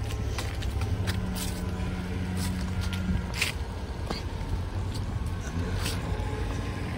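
A car engine running close by as a steady low rumble, with scattered light ticks and scrapes over it.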